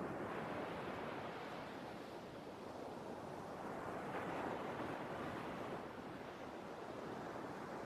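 Sea waves washing in, a steady rush of surf that swells once at the start and again about four seconds in.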